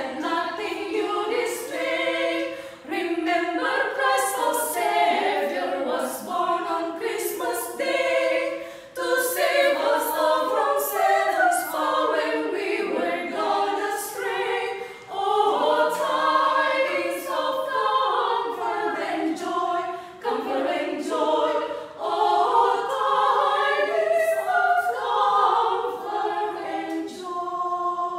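Small women's vocal ensemble singing a cappella in harmony, with no instruments, holding a final chord near the end.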